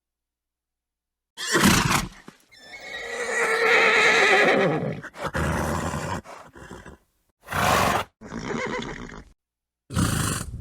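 Horse neighing: a long wavering whinny of a couple of seconds that drops in pitch at the end, set among short breathy snorts. The sounds are separate clips cut apart by dead silence.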